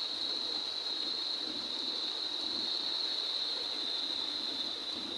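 Heavy rain pouring steadily, an even hiss with a steady high-pitched whine over it.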